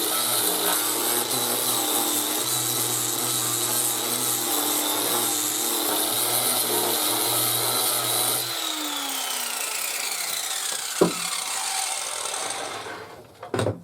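Bench saw (table saw) running at full speed, then switched off about two-thirds of the way in, its motor and blade coasting down in a steadily falling whine. A sharp knock comes as it winds down, and a couple of clicks near the end.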